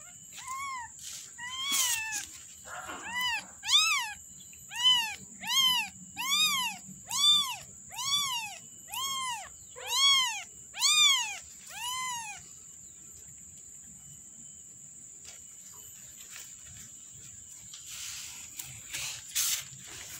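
A newborn kitten, about six days old, mewing over and over. There are about a dozen short, high cries roughly one a second, each rising and falling in pitch, and they stop a little past halfway.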